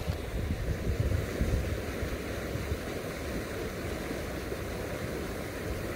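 Steady rush of a shallow, fast river current, with uneven low rumbling from wind on the microphone.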